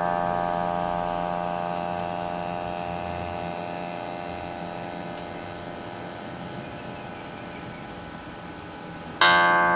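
Homemade electronic tone generator sounding one synthesized note rich in overtones that slowly fades away, like a plucked string left to ring. A new note strikes sharply just before the end.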